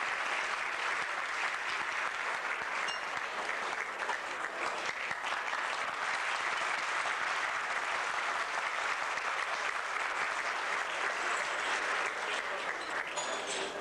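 A large audience applauding steadily, a long unbroken round of hand-clapping at an even level.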